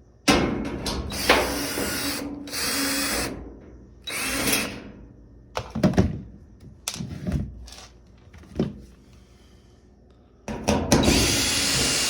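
A power drill-driver running in several short runs, backing screws out of a dryer's back panel, with sharp knocks between the runs.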